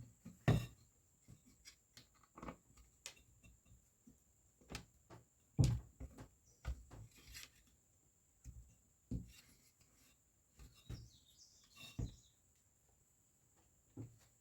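Scattered light knocks and clicks at irregular intervals, with a few faint chirps about eleven seconds in.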